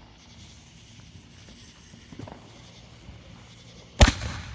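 Consumer firework: a faint fuse hiss, then about four seconds in a sudden loud bang as it ignites, followed by a rushing hiss of sparks.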